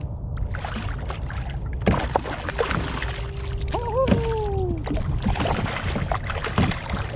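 A small hooked California halibut being reeled up beside a kayak, splashing and thrashing at the water's surface, with short clicks and splashes over a steady low wind rumble. A brief wavering cry rises and falls about four seconds in.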